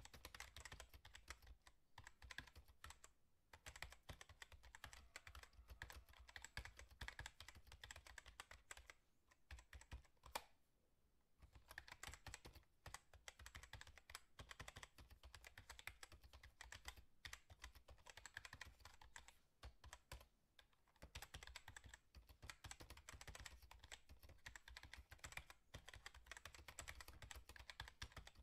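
Faint, rapid, irregular clicking and tapping, stopping briefly about three seconds in, for about two seconds near the middle, and again about twenty seconds in.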